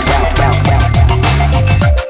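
Background music: an electronic dance track with a heavy bass line, sliding bass notes and a steady beat.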